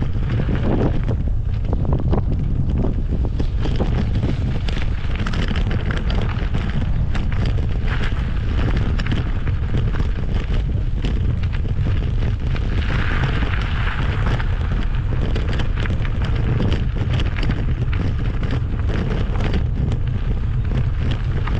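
Wind buffeting the microphone of a camera riding along a gravel track: a steady heavy rumble, with a scattered crackle of tyres on the gravel.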